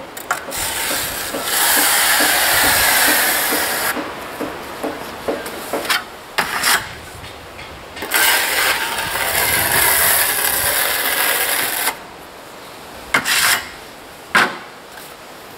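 Notched steel trowel scraping through adhesive on the wall, combing it out in two long strokes of a few seconds each, with short scrapes and taps between and after.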